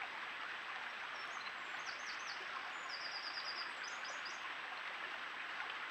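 Steady rush of running water through a stony stream bed, with high thin bird chirps over it and a quick trill of about seven notes near the middle.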